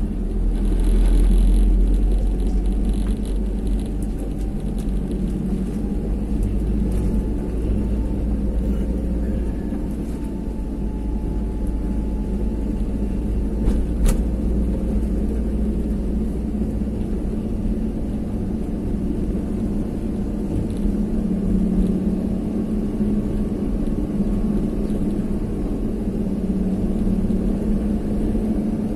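A vehicle on the move: steady engine and road rumble, with a single brief knock about halfway through.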